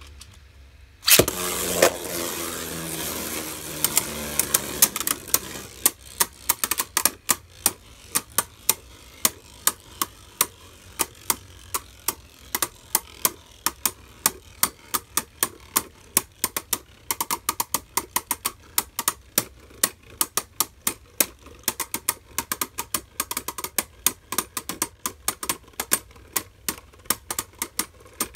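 Two Beyblade Burst spinning tops, Arc Bahamut and Maximum Garuda, battling in a plastic stadium: a loud clack about a second in, a spinning whir for a few seconds, then a long run of rapid, irregular clicks as the tops knock and grind against each other.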